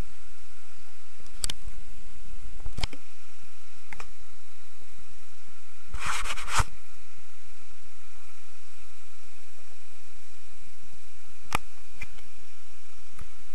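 Steady rush of a waterfall, with a few clicks and rubs of a hand handling the camera, the loudest about six seconds in.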